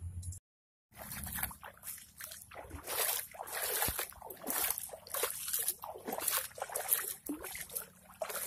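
Footsteps sloshing and rustling through shallow floodwater and wet grass on a riverbank, uneven splashy steps over the flowing river. The sound cuts out for a moment just after the start.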